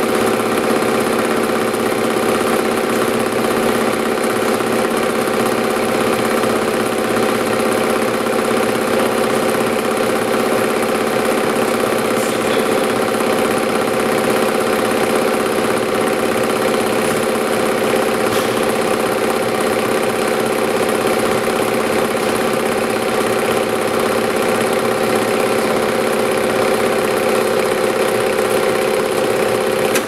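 Junkers transverse vibration test machine running steadily, shaking bolted wheel nuts sideways. It makes an even, loud mechanical drone with several steady tones.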